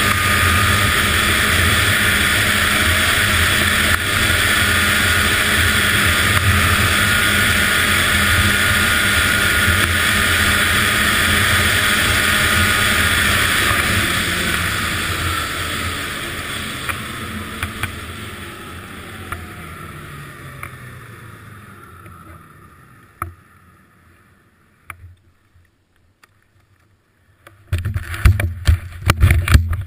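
Arctic Cat ZR800 two-stroke snowmobile running at speed with wind noise. About halfway through it slows, the engine note falls away and the sound fades to near quiet with a few clicks. Loud knocks and rumbling come near the end.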